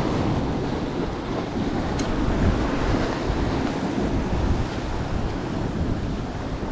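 Sea waves surging and washing against shore rocks, with wind buffeting the microphone.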